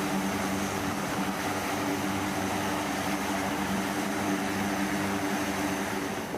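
Jet aircraft engines running in flight, a steady roar with a low hum of several steady tones underneath.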